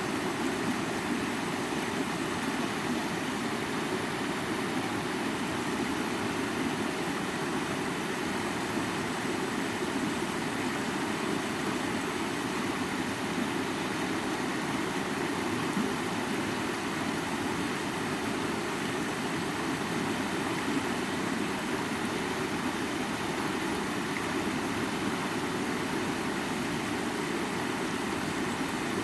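A high waterfall pouring steadily: a constant, even rush of falling water that does not change.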